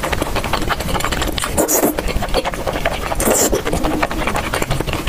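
Close-miked mukbang chewing of chewy tteokbokki rice cakes coated in thick spicy sauce: a steady stream of rapid wet mouth clicks and smacks, with a few louder wet smacks about two and three and a half seconds in.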